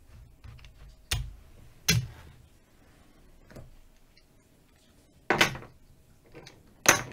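Casino chips clacking against each other in a handful of separate sharp clicks, with a quieter stretch in the middle, as a dealer handles and pays out chips on a winning craps bet.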